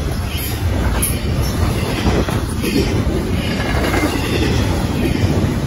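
Freight train of double-stack intermodal container well cars rolling past close by: a steady, loud rumble of steel wheels on the rails.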